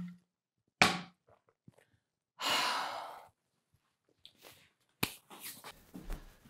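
A woman breathes out sharply, then lets out a long, deep calming sigh lasting about a second. Near the end come soft footsteps and clothing rustle.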